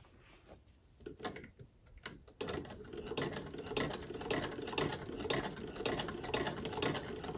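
Hand-cranked 1910 Singer 28K vibrating-shuttle sewing machine, freshly cleaned and oiled, sewing. A few separate clicks come first, then from about two and a half seconds in a steady run of rapid, even mechanical clicking.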